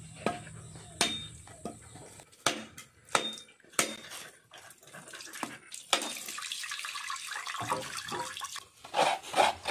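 A coconut being split open: several sharp knocks on the hard shell over the first six seconds, then a few seconds of water splashing and dripping as the coconut water spills out.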